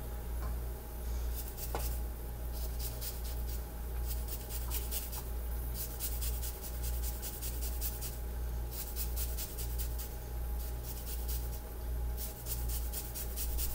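Lime zested on a Microplane rasp grater: several runs of quick, fine scraping strokes with short pauses between them, over a steady low hum.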